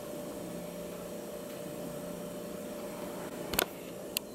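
Steady low hum of a running Whirlpool refrigerator, with two short clicks near the end.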